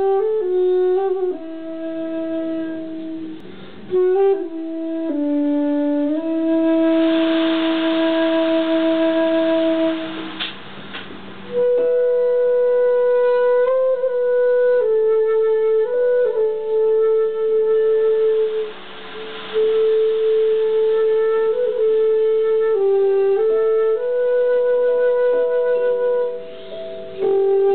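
Metal end-blown whistle playing a slow Celtic air close to the microphone: one melody line of long held notes, with breathy air noise on some notes and short pauses between phrases.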